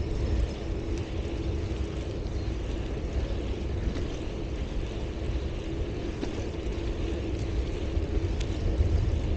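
Wind buffeting the microphone of a camera carried on a moving bicycle: a steady, fluctuating low rumble with a faint even hum underneath.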